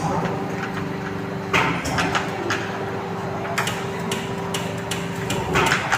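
Several sharp knocks over a steady mechanical hum, which stops near the end.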